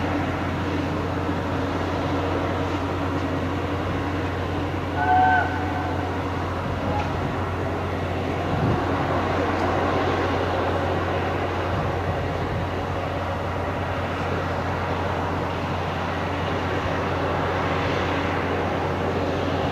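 BR Britannia Class 4-6-2 steam locomotive No. 70000 working hard as it pulls away with a heavy 12-coach train, its exhaust heard from a distance as a dense rumble over a steady low hum. About five seconds in, a brief high chirp stands out.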